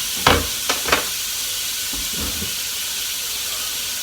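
Thinly sliced chicken thigh fillets sizzling in a hot, lightly oiled frying pan: a steady hiss. Three sharp knocks sound within the first second, the first the loudest.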